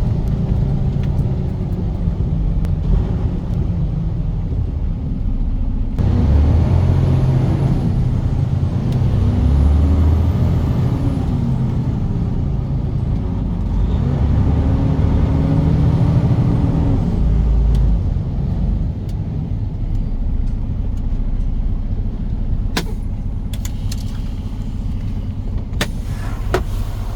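Semi-truck engine running on the road, its pitch rising and falling several times as it revs up and eases off, with a few sharp clicks near the end.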